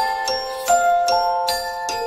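Background music: a gentle melody of bell-like struck notes, each ringing on into the next, about two to three notes a second.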